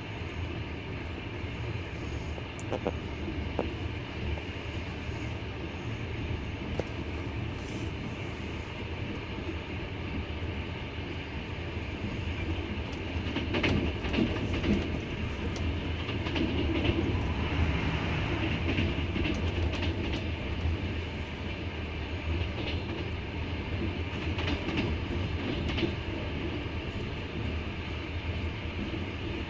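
Double-deck passenger train running on rails: a steady low rumble with the wheels clattering over rail joints, getting louder with a run of clicks about halfway through.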